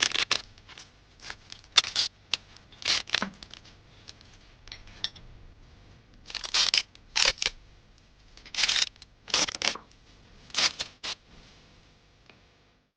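Packing tape being pulled off the roll in a series of short strips and wrapped around a wooden bar, with crinkling and handling noise. The strips stop near the end.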